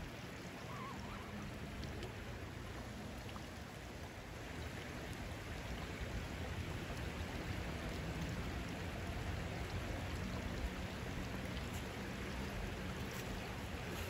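Shallow creek water running over rocks, a steady rush that grows a little louder after about four seconds.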